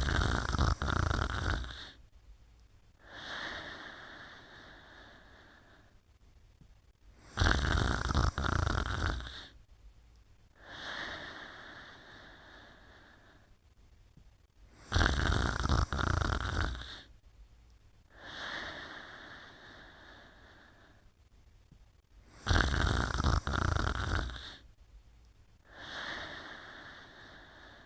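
Slow, regular snoring: four breaths about seven and a half seconds apart, each a loud snore lasting about two seconds followed by a quieter breath that fades away.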